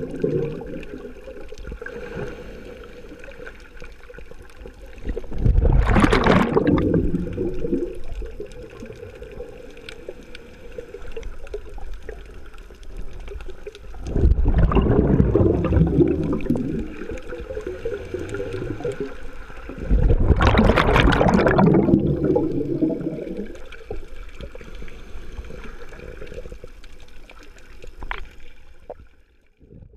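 Scuba diver breathing through a regulator, heard underwater: three loud bursts of exhaled bubbles several seconds apart, with quieter bubbling and water noise between.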